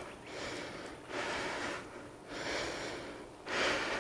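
A woman's breathing under exertion during a leg-raise exercise: about four noisy breaths, roughly one a second, with no voice.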